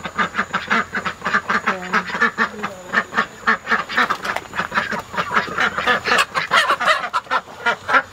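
Domestic ducks quacking in a rapid, continuous run of several quacks a second, a flock excited by a person entering their coop.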